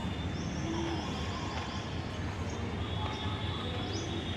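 Steady low rumble of outdoor background noise beside a railway line, with faint high chirping over it.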